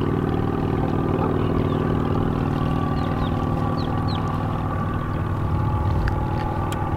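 A steady motor hum, with a few faint high chirps about three to four seconds in.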